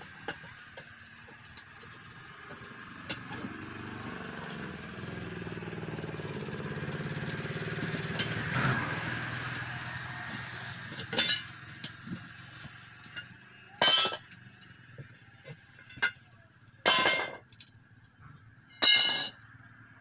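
A road vehicle passes, swelling to a peak about halfway through and fading. Then come five loud, ringing metal clangs of steel tools striking the steel rim and lock ring of a truck wheel while its tyre is being worked off.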